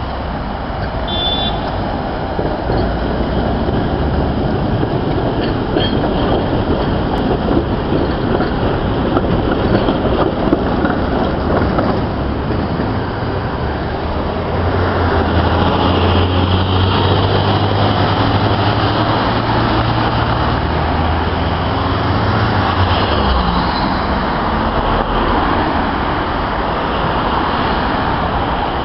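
Continuous city street traffic: a tram rolling through the intersection near the start, then cars and other motor vehicles driving past on the road. A steady low engine hum runs through the middle stretch.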